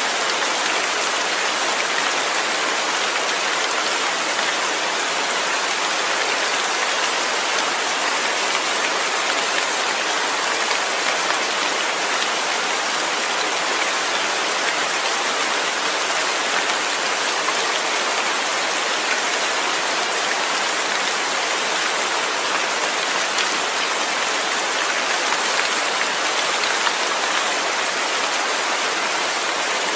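Steady rain falling and pattering on surfaces, an even hiss with no breaks or thunder.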